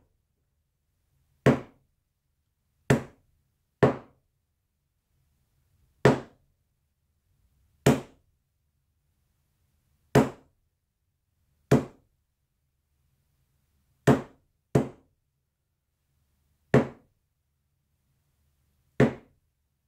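Tack hammer striking a hard painting panel: about eleven sharp single knocks at uneven intervals of one to two seconds, each dying away quickly.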